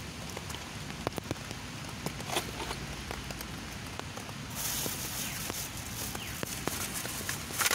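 Light rain falling, a steady hiss with scattered drops ticking close by; the hiss grows louder about four and a half seconds in.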